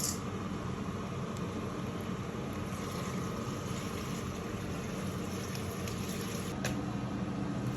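Steady rushing noise of water in a kitchen, with a couple of faint clicks.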